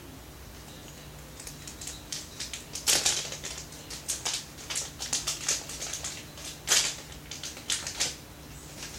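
Packaging being worked open by hand, crinkling and crackling in irregular bursts that start about a second and a half in.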